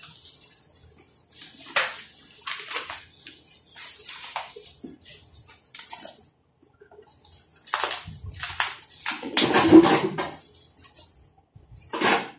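Plastic wrapping film on a cardboard box crinkling and rustling as it is pulled and torn by hand, in irregular bursts with short pauses and a louder stretch about nine to ten seconds in.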